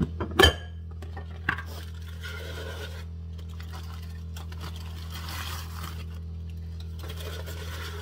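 Aluminium foil crinkling and rustling in an air fryer basket as cooked broccoli florets are handled, with a sharp clatter about half a second in. A steady low hum runs underneath.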